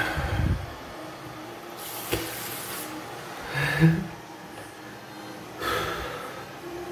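A person breathing close to the microphone: four separate breaths, one with a short catch of the voice about halfway through.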